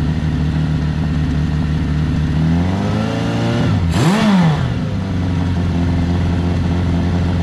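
1981 Kawasaki Z550's air-cooled inline-four engine running steadily, then revved: the pitch climbs from about two and a half seconds in, peaks around four seconds and drops back to an even run.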